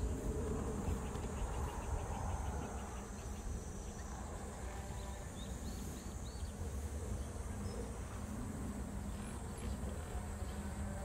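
Outdoor summer ambience: a steady high-pitched insect drone over a low wind rumble. About a second in there is a quick run of ticking, and about five seconds in a few short high chirps.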